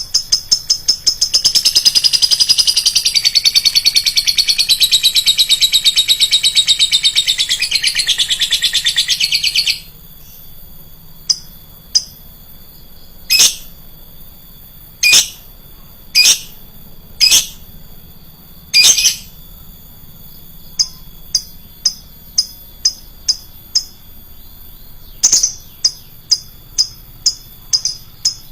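Lovebird chattering: a rapid, high-pitched run of chirps for about the first ten seconds, then sharp single shrill calls a second or two apart and runs of quick ticking notes.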